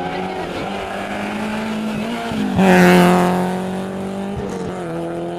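Rally car running hard through a special stage, its engine note steady and then surging loudest as it passes close about three seconds in, before fading again.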